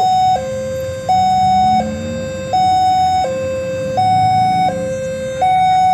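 Railway level-crossing warning siren sounding a steady two-tone hi-lo alternation, each tone held about three-quarters of a second, warning that a train is approaching.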